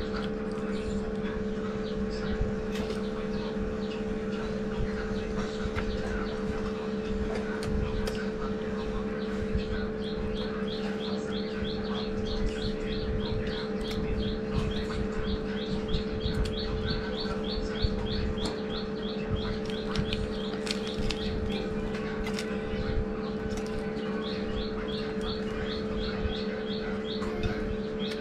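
Close-up eating sounds, with chewing and lip smacking and short sharp clicks, over a steady low hum. From about ten seconds in, a bird chirps over and over, two or three short notes a second, until near the end.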